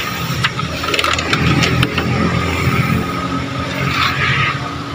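An engine running steadily, with a low hum and a constant high whine, and a few light clicks over it.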